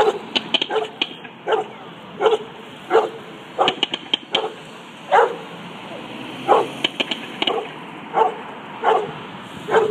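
A dog barking over and over, about a dozen barks with uneven gaps, and sharp crackles between them.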